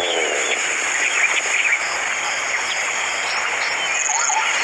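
Open grassland ambience: a steady outdoor hiss with many short bird chirps scattered through it and a thin high buzz throughout.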